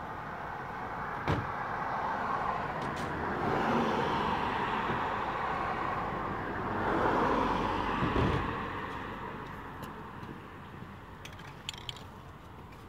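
Road traffic passing: tyre and engine noise swells, peaks twice near the middle, and fades away. A sharp knock about a second in, and a few light clicks near the end.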